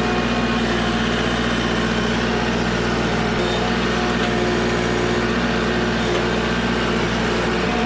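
Kubota L4701 compact tractor's diesel engine running steadily as the tractor moves across the field with its grapple, an even drone with no change in pitch.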